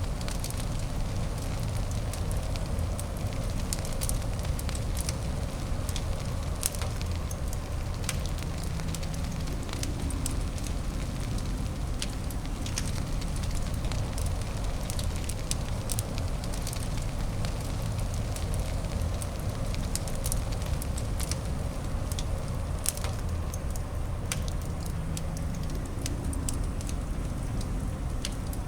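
Fireplace fire crackling, with irregular sharp pops and snaps scattered over a steady low rumbling noise bed.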